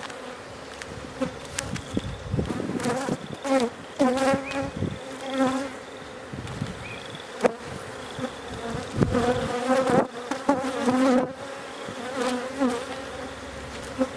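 Honey bees buzzing around an opened hive, a steady hum with individual bees swelling and wavering in pitch as they fly close past. Scattered light clicks and knocks run through it.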